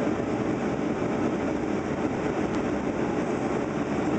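Steady rush of engine and airflow noise inside the passenger cabin of a Boeing 757-200 in flight, even throughout.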